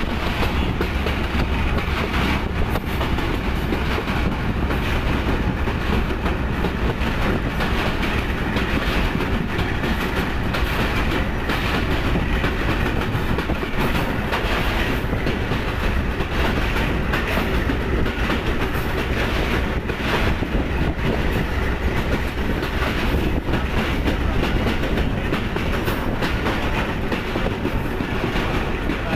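A Pakistan Railways shuttle train's passenger coach running along the track, heard from aboard. The wheels rumble steadily on the rails, with occasional clicks at irregular spacing as they cross rail joints.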